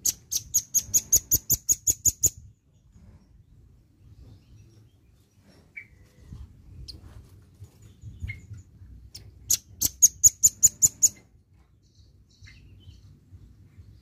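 Velvet-fronted nuthatch singing two rapid trills of high, evenly repeated notes, about five a second. The first trill opens the sound and the second comes about nine seconds in, each lasting about two seconds, with a few faint short calls between them.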